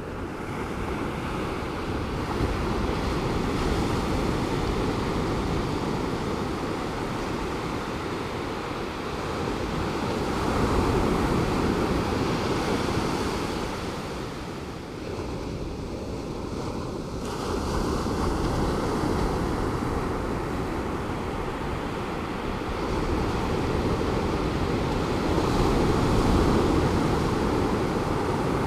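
Calm Pacific Ocean surf breaking on a beach, a steady wash of waves that swells and eases every several seconds. Some wind rumbles on the microphone.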